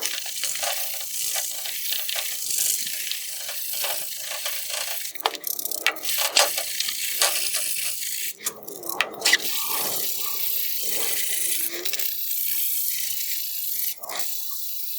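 Wet 400-grit sandpaper rubbed by hand in circles over a plastic headlight lens: a steady scratchy hiss with irregular scrapes, the lens being sanded to strip its yellowed, oxidised surface.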